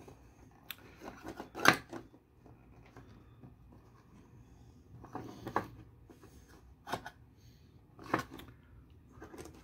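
Hands handling and fitting together 3D-printed plastic case parts: a few scattered clicks, taps and rubbing sounds, the sharpest about a second and a half in.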